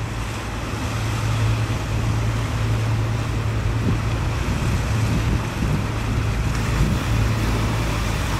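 Fishing boat's inboard diesel engine running steadily as the crabber moves slowly past at close range, a low even hum, with wind rumbling on the microphone.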